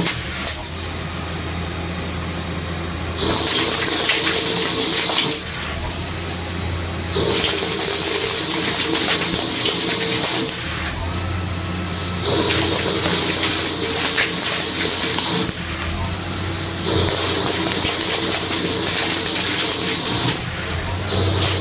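CNC lathe turning a metal bar. It takes about four cutting passes, each a few seconds long with a steady high whine and hiss, and between them it runs quieter on a low hum while the tool repositions.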